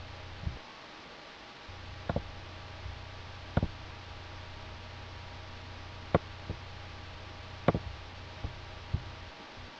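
Computer mouse buttons clicking, about eight sharp single clicks spaced irregularly a second or so apart, over a low steady electrical hum.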